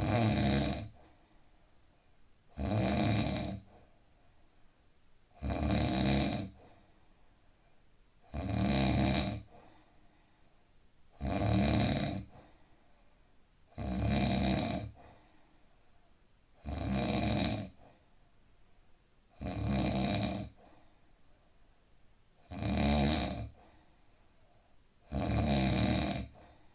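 A man snoring in an even rhythm: ten snores, one every two to three seconds, each lasting about a second, with quiet breathing between.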